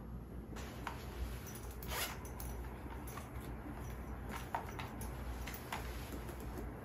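A zipper on a small fabric pouch being pulled, one quick zip about two seconds in, followed by a few light taps and clicks of small objects being handled.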